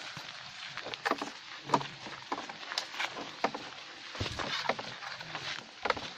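Footsteps through dry forest litter: irregular crackles, snaps and knocks at uneven intervals over a faint rustling.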